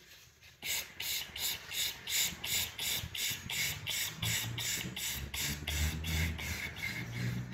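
Rapid series of short hissing sips of air drawn in through pursed lips (crow's-beak or kaki mudra breathing), about three to four sips a second. They start about half a second in and stop near the end.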